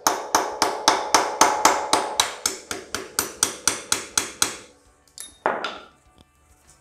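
Hammer striking a steel punch in a fast, even run of blows, about five a second, with a metallic ring, to drive out the stuck freewheeling hub pin on the rear wheel of a 1963 Bolens Husky 600 lawn tractor. The run stops about four and a half seconds in, followed by two single knocks.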